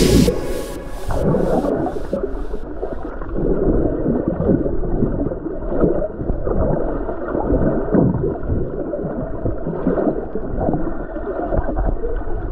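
Muffled underwater sound from a submerged camera: water churning and gurgling in uneven surges, every half second to a second.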